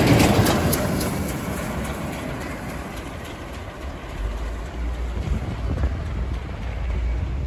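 Heritage steam train passing close by, the steel wheels of its wooden carriages running over the rails with a few clicks, the sound fading over the next few seconds. A steady low rumble follows.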